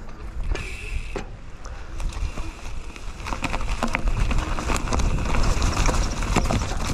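Mountain bike ridden along a trail: a low wind rumble on the camera microphone and rattling clicks from the bike over rough ground, growing louder and busier from about three seconds in.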